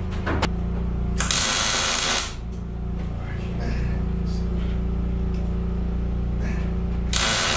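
A power tool runs in two short bursts about a second long, one near the start and one near the end, over a steady low hum.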